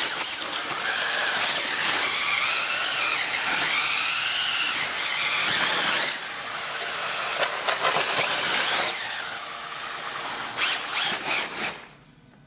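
Makita cordless drill with a paddle mixer stirring wet concrete in a plastic bucket. The motor's whine rises and falls in pitch as the trigger is worked. It eases off after about six seconds, then gives a few short bursts and stops near the end.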